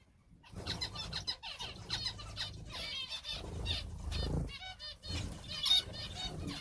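A flock of small cage birds (finches and canaries) chirping and calling over one another in quick, repeated short notes, starting after a brief silent moment at the start.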